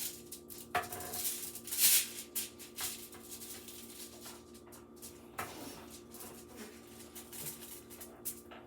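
Aluminium foil crinkling and rustling in short bursts as butter is rubbed over it by hand, the loudest crackle about two seconds in, over a steady low hum.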